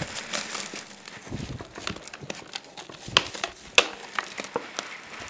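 Soil and gravel backfill being poured into a box around a small metal culvert pipe and spread by hand: a soft hiss of falling soil with irregular clicks of stones landing, and two louder clicks a little after three and near four seconds in.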